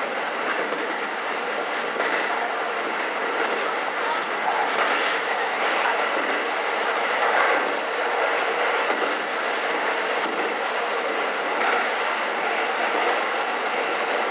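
Diesel railcar running at speed, heard from inside the car in a tunnel: a steady noise of wheels on rail and the car body, swelling a little now and then.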